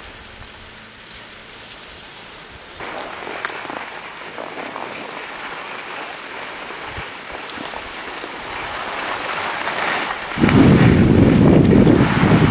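Skis hissing and scraping over packed, groomed snow while moving downhill, with wind buffeting the microphone; the noise steps up about three seconds in and turns into a much louder low rumble of wind on the microphone near the end.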